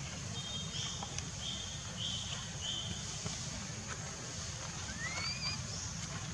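Outdoor ambience: a steady high buzz over a low rumble. About four short, flat, high chirps come in the first three seconds, and a single rising squeak comes about five seconds in.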